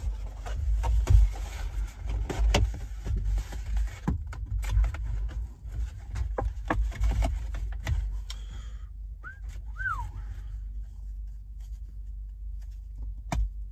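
Cardboard takeout box being opened and a wrapped sandwich handled: rustling and crinkling with many small knocks for about eight seconds. Then two short chirps that rise and fall, and one sharp click near the end.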